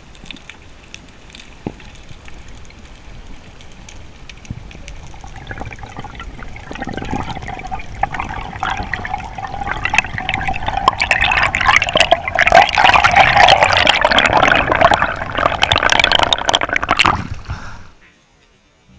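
Water gurgling and rushing, growing steadily louder over several seconds, then cutting off suddenly near the end.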